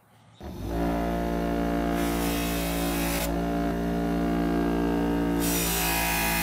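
Bench grinder motor running with a steady hum, starting abruptly about half a second in. The steel sword blade is held to the spinning wheel from about two to three seconds in and again near the end, adding a hissing grind.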